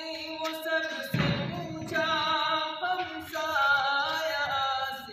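A group of men singing a song together without instruments, held notes gliding between pitches, with a brief low rumble about a second in.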